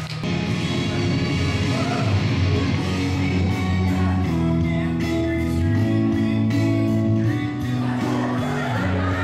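Music of a song with held chords over a bass line that changes about once a second, with a few brief vocal notes over it.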